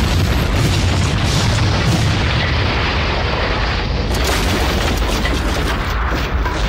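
A large movie explosion with flying debris: a loud, deep, continuous rumble of blast and fire.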